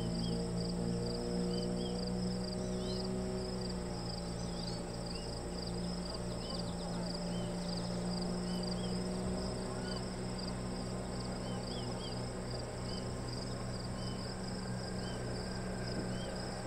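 A steady, high-pitched, pulsing chorus of insects chirring, with small chirps repeating about once a second, over the low steady hum of a small motorboat's engine.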